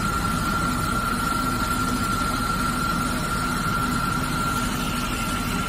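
PD1500 wire saw running steadily as its wire cuts through a block of white Carrara marble: a steady high whine over a low machine hum.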